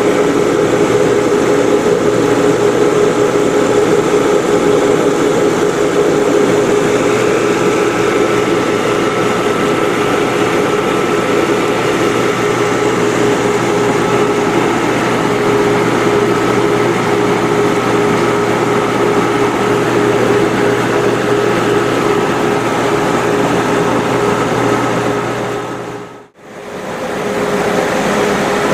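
Precision grinding machine for rubber stripper rings running with a steady, even hum and whir. The sound dips out briefly near the end and then picks up again.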